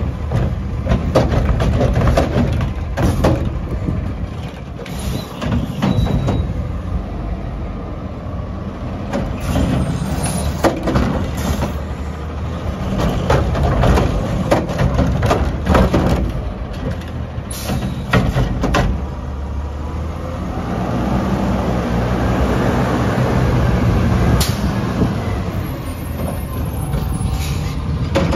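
Front-loading garbage truck with a Curotto-Can automated arm: diesel engine running with repeated metallic clanks and bangs as carts are grabbed, shaken out and set back. The engine revs up for several seconds in the second half.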